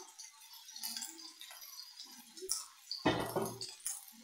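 Light clinks and taps as seasoning is shaken from a plastic container into an iron kadai of sliced potatoes, with one louder thud about three seconds in.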